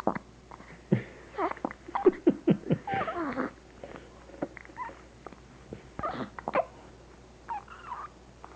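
Newborn baby hiccupping: a run of short, sharp hiccups, bunched about one to three seconds in and again around six seconds, with small squeaky whimpers and grunts between them.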